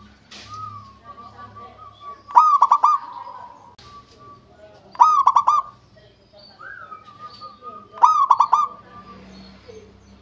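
Zebra dove (perkutut) cooing: three loud phrases of quick rolling notes, one about every two and a half to three seconds, with softer drawn-out coos between them.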